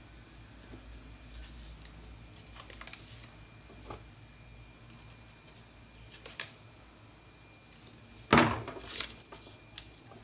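Paper pattern pieces being handled and stuck down on a work table: scattered light rustles and clicks, with one louder, brief rustle about eight seconds in followed by a few smaller ones.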